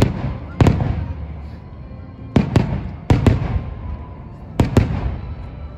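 Aerial firework shells bursting: about eight sharp bangs, mostly in close pairs, each trailing off in a low rumble.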